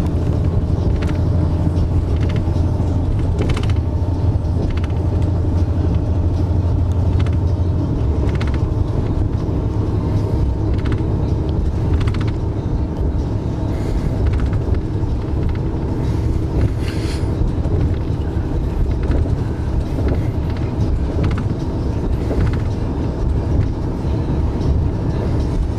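Steady low rumble inside a coach bus cabin as the bus runs, with faint clicks and rattles here and there.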